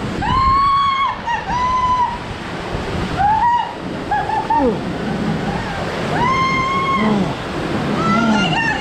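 People squealing and crying out from the shock of freezing water as they get into a waterfall pool: several high, held squeals and some lower, shorter cries, over the steady rush of falling water and splashing.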